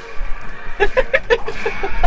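Cartoon clip soundtrack with music. About a second in, a quick run of short, evenly spaced vocal sounds starts, about six a second.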